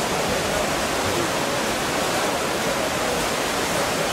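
Steady wash of noise from an indoor swimming pool during a freestyle race: swimmers splashing, with faint voices from the pool hall mixed in.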